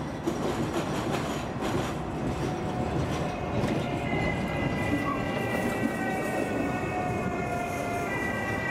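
Lille Breda light-rail tram rolling past close by over rail points, with a continuous rumble of wheels on rail. From about halfway, high steady wheel squeal joins the rumble as the tram passes.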